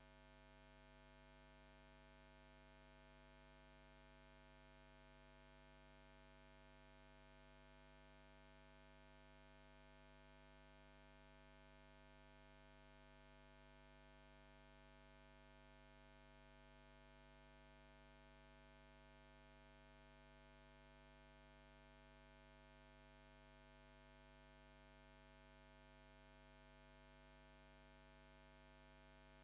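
Near silence: a faint, perfectly steady hum with no change.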